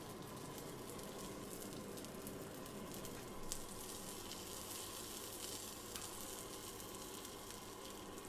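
Lamb breast searing in a little oil in a hot frying pan: a steady sizzle as the fatty meat browns and renders its fat, with a couple of faint ticks.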